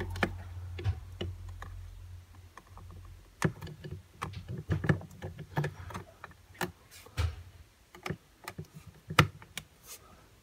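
Multimeter test probes and leads being handled at a heating wiring centre's screw terminal strip: irregular sharp clicks and taps of plastic and metal as the probes are placed on the terminals. A low rumble runs under the first couple of seconds.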